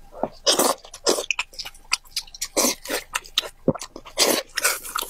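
Close-miked chewing and biting of braised pig's head meat: an irregular string of separate crunchy mouth sounds.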